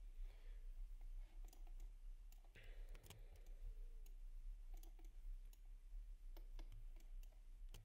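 Faint, irregular clicks of a computer mouse, about a dozen, while objects are selected in a 3D modelling program, over a faint low hum.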